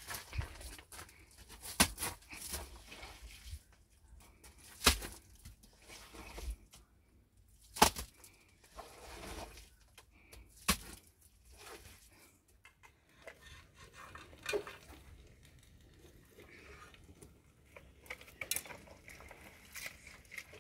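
Handfuls of wet mud being scooped and slapped onto a dry-stone wall by hand, with scattered sharp knocks a few seconds apart and faint scraping on gravelly ground.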